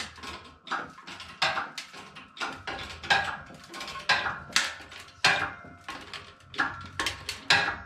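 20-ton hydraulic shop press being hand-pumped, its pump handle and fittings giving sharp metallic clanks about twice a second as the ram presses on a seized wheel bearing in a motorcycle hub.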